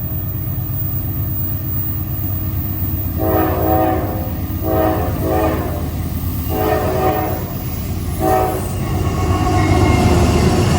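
A diesel freight locomotive's horn sounds four blasts: three long ones and a final short one. Under the horn runs the low rumble of the locomotive's engines, which grows louder near the end as the train comes closer.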